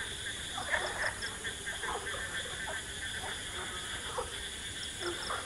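Frogs calling in short, scattered croaks over a steady high-pitched drone.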